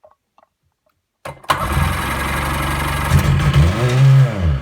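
Sea-Doo twin-cylinder two-stroke engine cranking over and firing about a second in on premix squirted down the cylinders, with the throttle wide open, and running steadily. Near the end its revs swell and then fall away.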